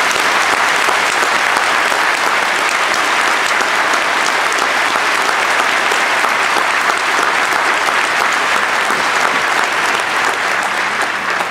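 An audience applauding, a steady dense clapping that begins to die away near the end.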